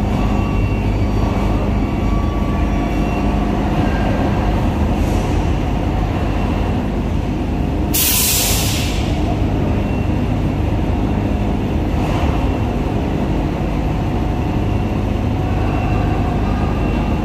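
Heavy diesel engine running steadily with a deep drone, broken about eight seconds in by one loud, short burst of hissing air, with fainter hisses near five and twelve seconds.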